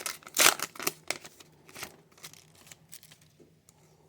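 Trading card pack being handled: foil wrapper crinkling and tearing and cards flicked through by hand, a few sharp rustles in the first two seconds, then lighter clicks that die away.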